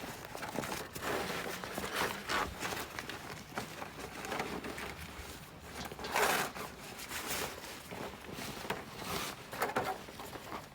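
Rustling and rubbing as fabric and plastic parts of a large Halloween prop are handled, coming in irregular bursts, the loudest about six seconds in.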